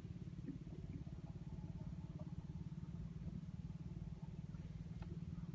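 Boat motor running steadily at low speed, a low, even hum with a fast regular pulse.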